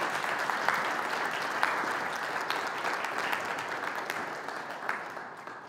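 Congregation applauding, a dense patter of many hands clapping that tapers off near the end.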